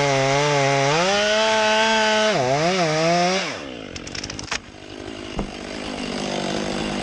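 Chainsaw running, its engine note jumping higher about a second in, wavering, then dying away about three and a half seconds in. A few sharp clicks and a single knock follow, over a fainter steady hum.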